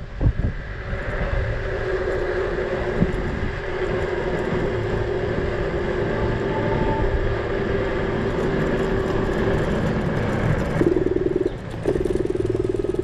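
Dualtron Mini electric scooter's 1450 W hub motor whining steadily at cruising speed, over tyre rumble on asphalt and wind on the microphone. Twice near the end the whine turns rough and pulsing.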